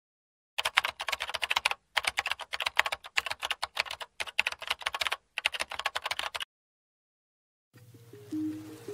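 Computer keyboard typing sound effect: rapid key clicks in several runs with short pauses, stopping after about six and a half seconds. Soft electronic music with steady notes begins near the end.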